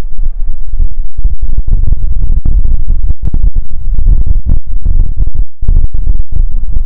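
Heavy wind buffeting the microphone: a loud, distorted low rumble that comes and goes in quick, irregular gusts.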